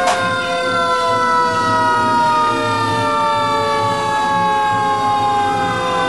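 Fire engine siren in one long wail, its pitch falling slowly and evenly. Two brief sharp blasts sound right at the start.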